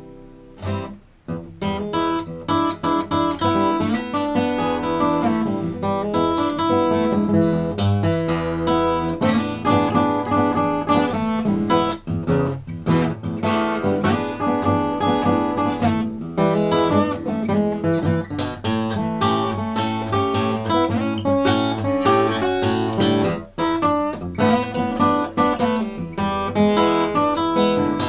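Bedell Earthsong Orchestra acoustic guitar played solo: a continuous run of plucked notes and strummed chords, resuming after a brief lull about a second in.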